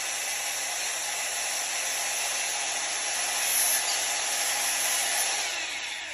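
Angle grinder running steadily with a high whine, cutting into steel threaded rod. It gets a little louder in the middle and winds down at the end.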